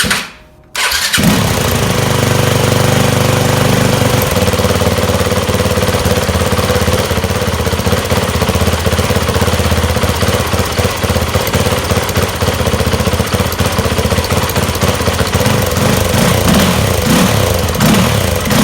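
Yamaha WR250F's four-stroke single-cylinder dirt bike engine running through its quiet stock muffler. After a short break just under a second in, it idles steadily, then is blipped up and down several times over the last few seconds.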